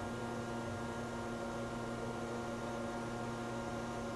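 Okamoto PSG-125 hydraulic surface grinder running through its wheel-dressing cycle: a steady hum with several steady tones.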